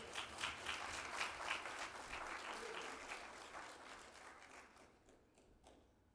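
Congregation applauding after a spoken testimony; the clapping is densest at first and fades out over about five seconds.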